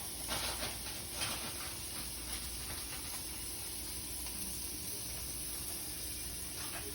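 Steady background hiss, with a few faint ticks and rustles in the first second or so.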